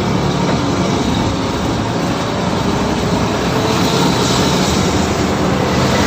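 Mercedes-Benz O530 Citaro city bus on the move, heard from inside: a steady drone of engine, drivetrain and road noise.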